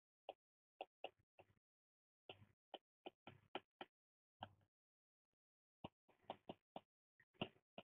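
Faint, irregular clicks and taps of a stylus on a tablet screen during handwriting, a few per second, with short scratchy strokes between them.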